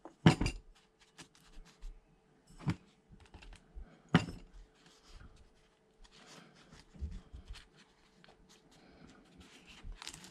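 Hands working potting soil into plastic seedling cell trays: scattered scratching and light knocks, the sharpest about a quarter second in and again near three and four seconds.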